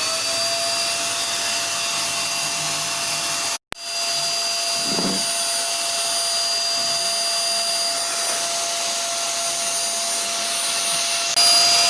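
SToK 1200-watt vacuum cleaner running at full suction: a steady motor whine over a dense rushing hiss. The sound breaks off for an instant a few seconds in and grows louder near the end.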